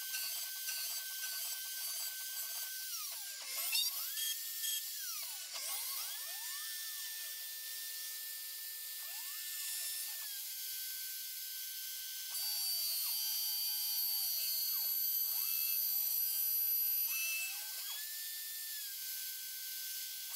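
CNC machine milling aluminium: a steady high spindle whine and cutting hiss, with motor tones that repeatedly sweep down and back up as the axes slow, reverse and speed up again. The cutting grows louder between about 12 and 17 seconds in.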